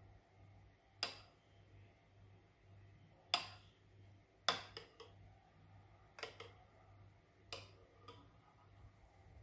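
Metal spoon clinking against a ceramic soup bowl while scooping thick soup: scattered sharp clinks every second or so, the loudest about three and a half and four and a half seconds in.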